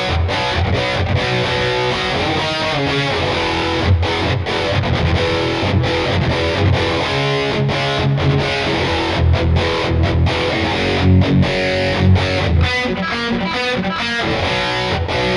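Lavish CMRL-W electric guitar with Tesla pickups played through a distorted tone: fast riffs with heavy low chugging notes, broken by several brief stops.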